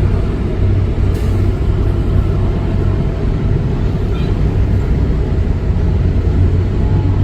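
Caterpillar 330 excavator's diesel engine running steadily, a continuous low drone.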